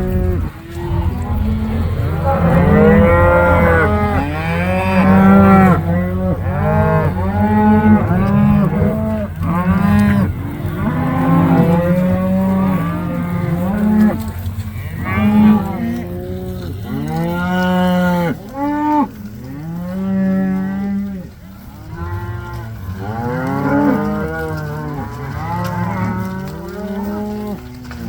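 A herd of Red Angus cattle mooing and bawling continuously, with many overlapping calls. A steady low hum runs underneath until about two-thirds of the way through.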